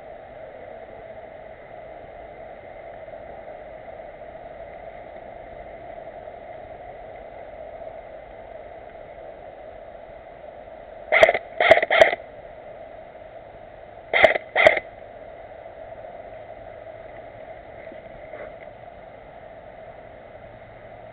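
Airsoft gun shots: five sharp pops in two quick groups, three and then two, over a steady hiss of wind or microphone noise.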